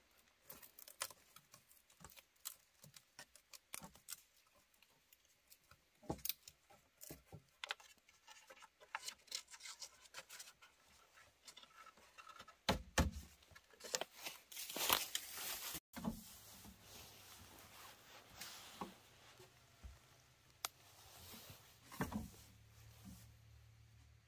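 Materials being worked by hand: irregular clicks, taps and scraping, with a louder tearing, rasping stretch a little past the middle. This stops suddenly, and a low steady hum follows.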